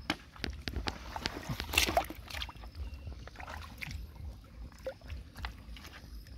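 Hands splashing and sloshing in shallow running water, picking snails out of the mud, with scattered short splashes and small knocks. The loudest splash comes about two seconds in.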